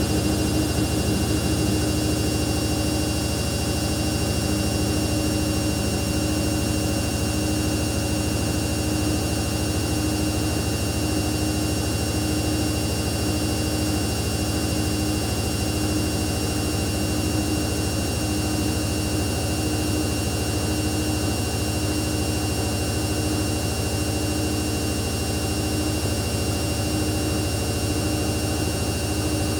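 Samsung P1271 front-loading washing machine running steadily: a constant hum with a steady whine that does not change.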